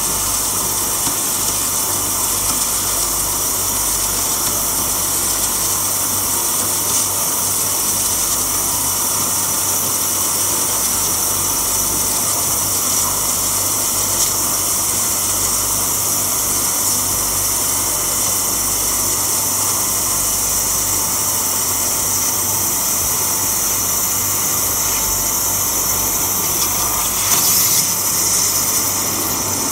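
Abrasive waterjet cutter's high-pressure jet hissing steadily as it cuts through a veined stone slab, briefly a little louder near the end.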